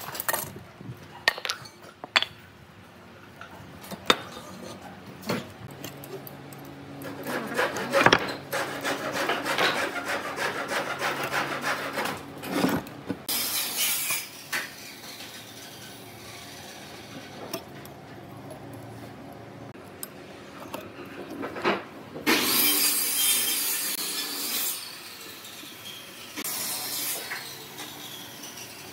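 Wooden workpieces being handled and worked by hand: a few sharp knocks of wood in the first seconds, then longer stretches of rubbing and scraping on wood, with quieter gaps between.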